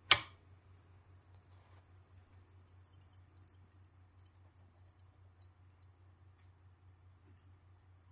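A switch clicks once, sharply, then a ceramic-cone radiant heat-lamp bulb makes faint, scattered tinking sounds as its hot coil cools down, over a low steady hum.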